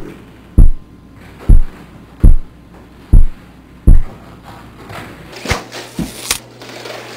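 A run of five deep, booming thumps, evenly spaced about once every 0.8 s, then a short burst of scuffing and knocks as a body slides and lands on a kitchen floor about five and a half seconds in.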